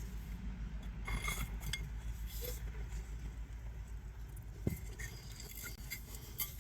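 Scattered light metallic clinks and taps of tools and parts being handled, with one sharper knock about four and a half seconds in, over a steady low rumble.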